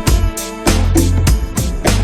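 Background music with a steady drum beat, bass and pitched instrument notes.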